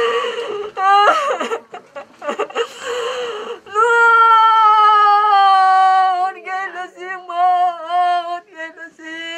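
A woman wailing in grief. Broken sobbing cries give way, about four seconds in, to one long drawn-out wail that slowly falls in pitch, then breaks into shorter wavering cries.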